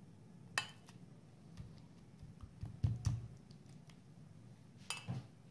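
A few clinks and knocks of a spatula and pot against a small glass dish as cream is scraped in and smoothed. The loudest is a dull knock about three seconds in, with two quick clicks near the end.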